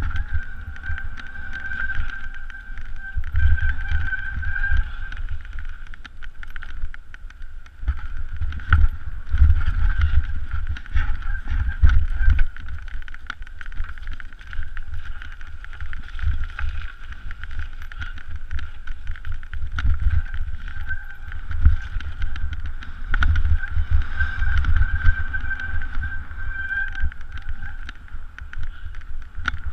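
Mountain bike running down a rocky trail, heard from a camera mounted on the rider: wind buffets the microphone, and the tyres and frame clatter over loose stones with many short knocks. A steady high buzz fades in and out.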